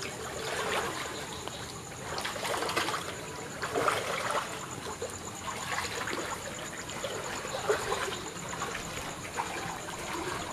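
Rainy-night water trickling and running, with irregular louder splashes every second or two.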